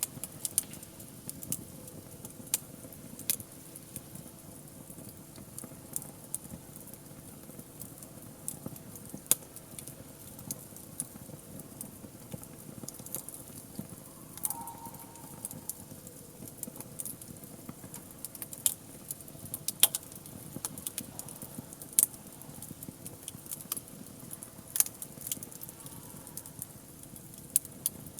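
Wood fire crackling, with irregular sharp pops and snaps over a low steady hiss.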